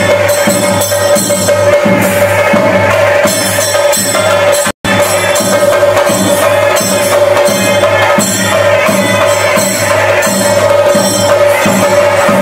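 Chenda drums and jingling cymbals playing a fast, continuous rhythm for a Muthappan theyyam, with a steady held note sounding over it. The sound cuts out for a split second about five seconds in.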